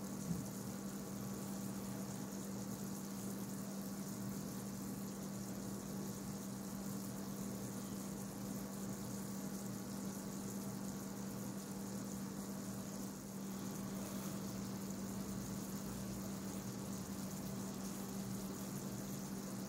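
Steady low hum with a hiss underneath, unchanging throughout, and a single short click just after the start.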